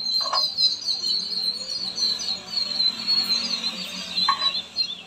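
Rapid, high-pitched bird chirping runs throughout over a background music bed with a steady low note. Two brief soft sounds come about a quarter second in and again near the end.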